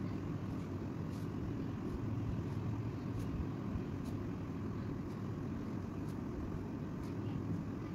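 Steady low-pitched background noise, with faint light ticks about once a second.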